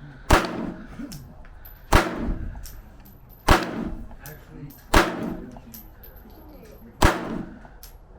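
Gunshots fired one at a time, five in all, about a second and a half apart with a longer gap before the last, each cracking and ringing out briefly. Fainter clicks are heard between the shots.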